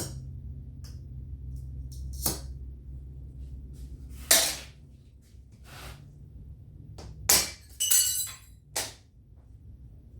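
Thin sheet glass snapping and clinking: a string of sharp cracks a second or two apart, with a cluster of ringing clinks near the end as small pieces break off along the score lines, over a low steady hum.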